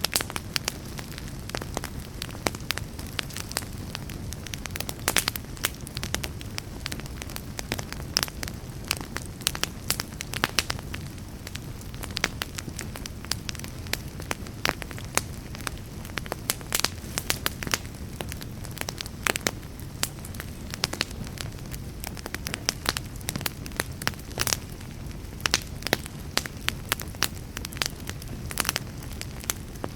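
Wood fire burning in a fireplace, crackling steadily with many sharp pops and snaps, several a second, over a low, even rumble of flames.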